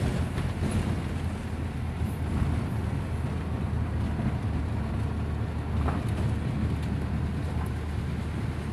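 Steady low rumble of a cargo truck on the move, heard from inside its cab: engine and tyre noise on a rough road.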